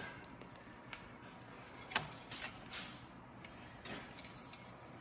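Faint scrapes and a few light clicks as an engine oil dipstick is slid into its tube and drawn back out. The clearest click comes about two seconds in.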